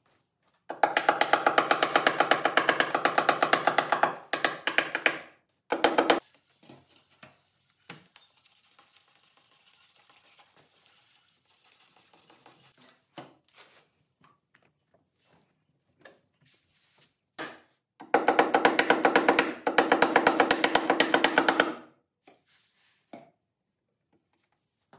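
Rapid, evenly paced hammer taps on a paintless-dent-repair tap-down tool against the car's body panel, knocking down high spots, with a pitched metallic ring. There are two runs of several seconds each, one near the start and one about 18 seconds in, with a short burst about 6 seconds in and faint scraping between them.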